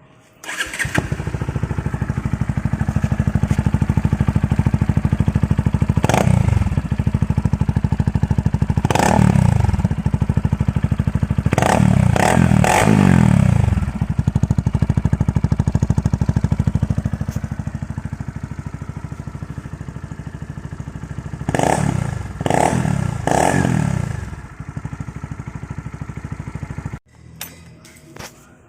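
Kawasaki NS160 motorcycle engine with an opened-up 'kalkal' exhaust pipe, starting up within the first second and running with a fast, rapid exhaust pulse. The throttle is blipped about seven times: singly, then in a quick pair, then three in a row. The engine cuts off suddenly about a second before the end.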